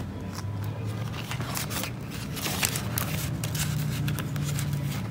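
Paper banknotes and clear plastic binder pouches rustling as they are handled, with a few light clicks, over a low steady hum.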